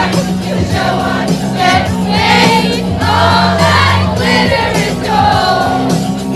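A pop song sung by a group of voices together over a steady backing track.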